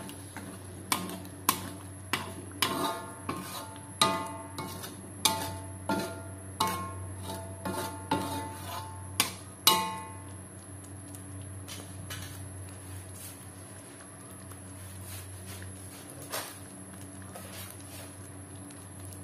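A spatula knocking and scraping against a coated wok as tamarind water is stirred into chilli paste: sharp, slightly ringing knocks about every half second for the first ten seconds. The stirring then stops and only a quieter low steady hum remains, with one more knock near the end.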